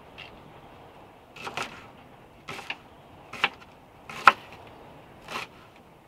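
Kitchen knife cutting green onions on a wooden cutting board: about six separate cuts, roughly a second apart, each landing on the board, the loudest about four seconds in.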